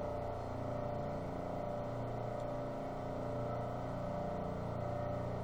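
Steady mechanical hum with several held tones, unchanging throughout.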